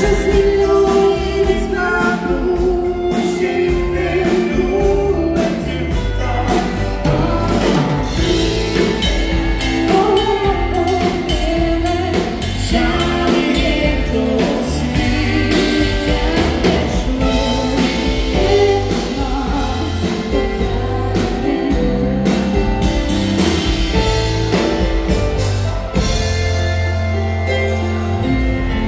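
Live dance band music with singing, over a steady drum-kit beat with guitars and keyboard.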